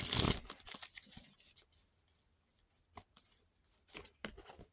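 A deck of tarot cards being handled and shuffled: a loud rustle at the start that fades over the first second or so, then a few faint card clicks and slides about three and four seconds in.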